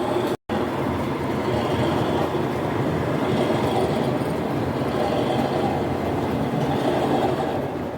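Model railway train running along the track, a steady rumble that starts after a momentary break near the start.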